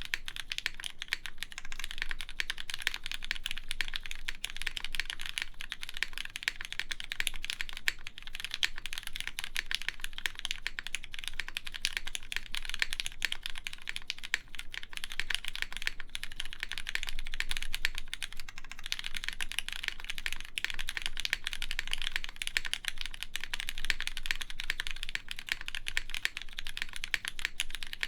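Continuous fast typing on a mechanical keyboard with lubed, linear Cherry MX Black switches, a polypropylene top-mount plate and GMK keycaps: a dense, even stream of soft key clacks.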